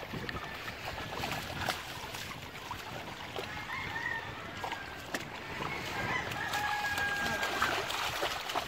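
A bullmastiff and a German shepherd splashing as they wade through shallow sea water, with a sharp splash now and then. A bird calls over it, one long held call about six seconds in.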